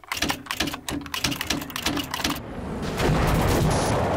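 Title-sequence sound effects: a fast, irregular run of sharp clicks for the first two seconds or so, then a loud, dense, steady rush of noise that swells in about three seconds in.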